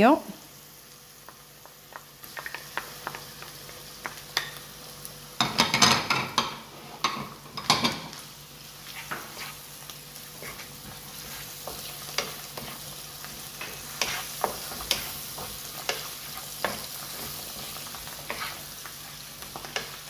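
Sliced mushrooms frying in hot oil with onion and garlic in a nonstick pan, sizzling while a wooden spatula stirs and scrapes, with scattered light taps. The sizzle and scraping swell for about two seconds around five seconds in.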